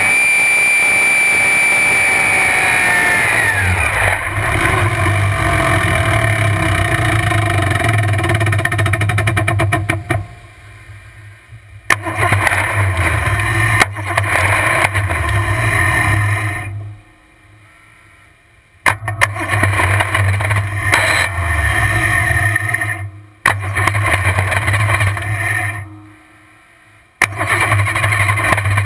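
1450 hp supercharged alcohol drag-boat engine coming off throttle, its blower and gear-drive whine falling away over the first few seconds to a low, lumpy idle. In the second half it dies out several times and refires abruptly each time.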